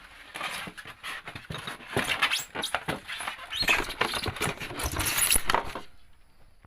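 Handling noise from a metal car horn being turned over and tapped: a run of irregular clicks, knocks and rustling that stops about six seconds in.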